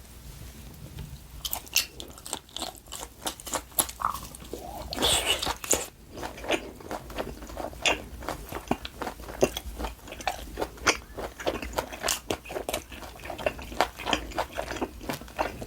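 Close-miked biting and chewing of LA galbi (Korean marinated beef short ribs), with many irregular sharp crunches and clicks and a longer rustling stretch about five seconds in.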